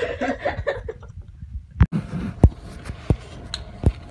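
Handheld phone recording: muffled voice sounds and rustling, then an abrupt cut to the steady room noise of a fast-food restaurant, with three dull knocks of the phone being handled.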